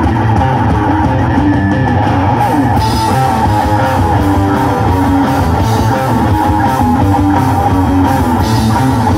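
Live rock band playing loud instrumental rock: distorted electric guitars through Marshall amplifiers, bass guitar and drum kit, heard through a stage sound system. A brighter cymbal wash comes in about two and a half seconds in.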